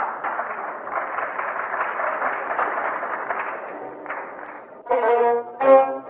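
Audience applause on an old live concert recording. About five seconds in, the orchestra comes in with loud sustained notes.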